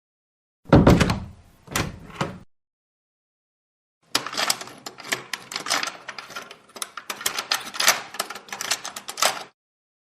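Door sound effects: a door opens with a heavy thud followed by a sharp latch click, then after a pause a long run of rapid clattering clicks, like a door handle and lock being rattled.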